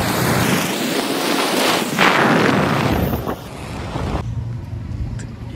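Wind buffeting the microphone of a camera riding along a road, a loud steady rushing noise that drops off suddenly about four seconds in, leaving a quieter low hum.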